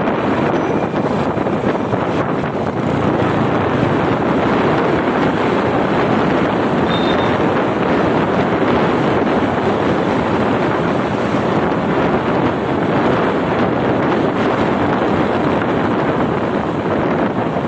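Steady wind rushing over the microphone of a moving motorcycle, mixed with road noise, at a constant level throughout.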